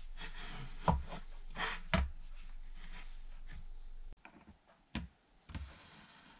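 Handling knocks of wooden clamp blocks and a metal bar clamp on a workbench, with two heavier clunks about one and two seconds in. After a sudden drop in background about four seconds in, a few light clicks of a steel blade set against a wooden block.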